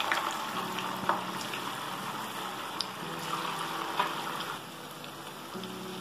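Pumpkin-jaggery gargi deep-frying in hot oil: a steady sizzle with a few sharp pops, easing slightly after about four and a half seconds.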